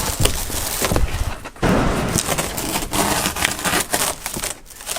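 Brittle old headliner of a 1981 Chevrolet being pulled down off the inside of the roof: dense crackling, tearing and scraping with scattered knocks.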